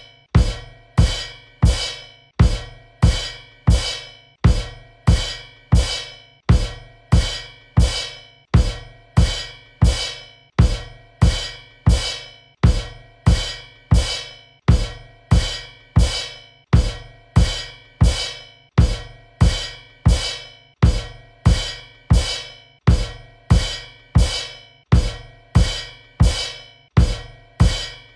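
Drum kit cymbal kicks: a kick drum and cymbal struck together, each hit ringing out, repeating over and over in a steady loop of about three hits every two seconds.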